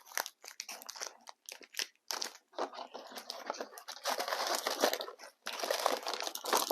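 Plastic trading-card pack wrappers crinkling and rustling as the packs are handled, with many small crackles and ticks.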